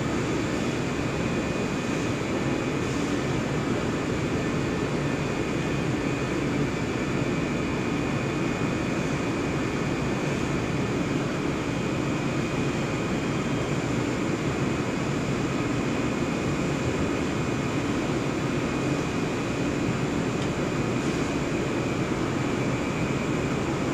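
HDPE blown film extrusion line running: a constant drone of motors and blowers with a few faint steady whines on top.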